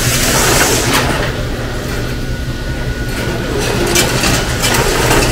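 Automatic pork slicing machine and processing-line machinery running with a steady low hum, with hissing swishes about a second in and again around four seconds as the line cycles.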